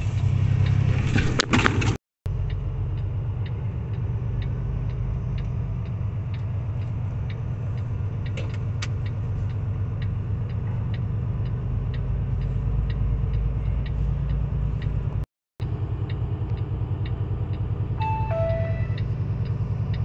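Truck engine running steadily, heard inside the cab, with a turn signal clicking about two to three times a second. Near the end a short electronic chime sounds, two notes falling in pitch, like a navigation prompt.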